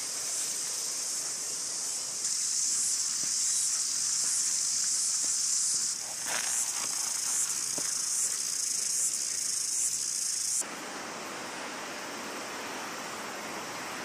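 Chorus of cicadas, a shrill high buzz pulsing about twice a second. It cuts off abruptly about ten seconds in and is replaced by the steady rush of a river.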